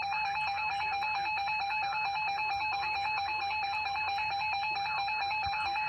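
Emergency Alert System attention signal: a steady, unbroken electronic alert tone that announces an emergency alert broadcast.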